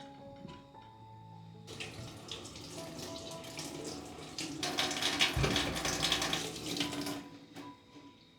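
Tap water running into a sink. It starts about two seconds in, runs harder past the middle, and is shut off near the end, with a dull knock in the middle. Soft background music plays under it.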